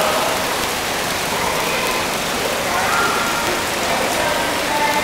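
Steady hiss of running, splashing water, with faint distant voices now and then.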